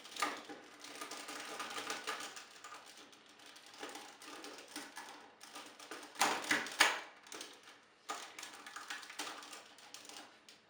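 Hard plastic toy parts clicking and rattling as pieces of a transforming figure are handled and pegged together, in quick runs of clicks with a louder cluster about six seconds in.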